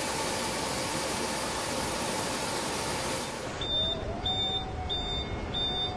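A loud, steady hiss that cuts off abruptly about three and a half seconds in. It gives way to a quieter low factory hum with a faint machine whine, while a high-pitched electronic warning beeper sounds four times, about two-thirds of a second apart.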